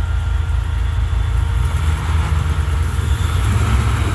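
Ford Bronco's V8 engine running under light throttle, its pitch rising a little about a second and a half in and again near the end, while the truck sits hung up on its front differential on a rock ledge, unable to pull itself over.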